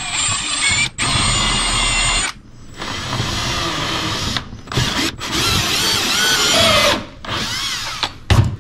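Cordless drill boring through the plastic wall of a cooler, first with a small pilot bit, then with a step bit widening the hole for a 3/4-inch bulkhead fitting. The motor runs in several bursts with short pauses, its pitch rising and falling as the trigger is worked. A short thump comes near the end.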